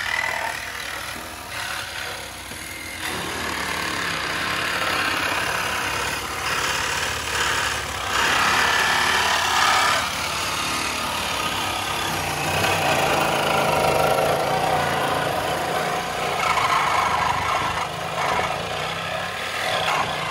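Reciprocating saw cutting through the sheet-metal floor pan and rocker sill of a Honda Civic, the blade rattling through the steel, its level rising and falling as it bites.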